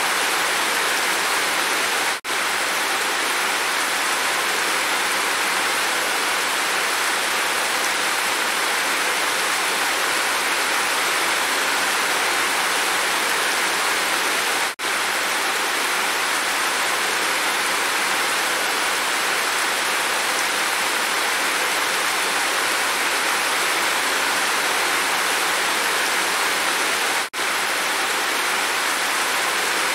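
Heavy rain falling steadily, with rainwater pouring off a roof edge, an even rush of water. It cuts out very briefly three times, about every twelve and a half seconds.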